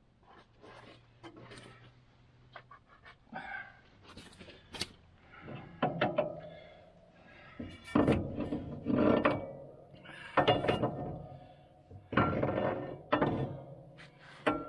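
A steel pry bar levering and scraping against the Sno-way plow's steel mount: irregular scrapes and clanks, with louder strokes from about halfway through.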